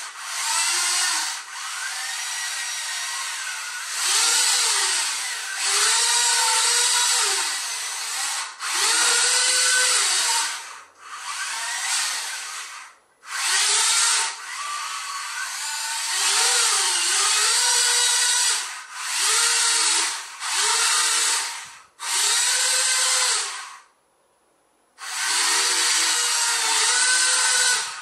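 Small electric gear motors of a four-wheeled DIY robot car whining in bursts of one to three seconds, the pitch rising and falling as the car speeds up and slows. The motors stop briefly several times, once for about a second of near silence near the end.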